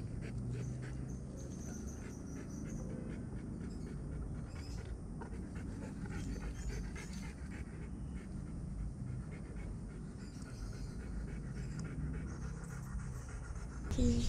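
Rottweiler panting steadily with its mouth open, with a brief louder noise near the end.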